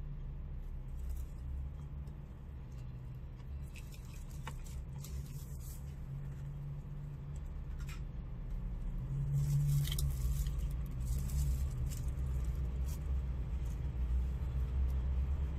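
A steady low rumble, a little louder from about nine seconds in, with light clicks and rustles of chopsticks against a takeout bowl and its plastic packaging.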